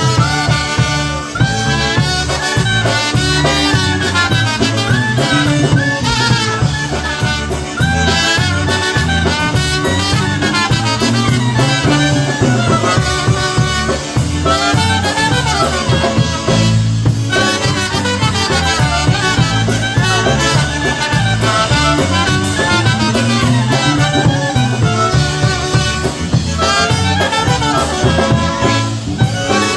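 Live polka band playing an instrumental passage with a steady beat and a repeating bass line.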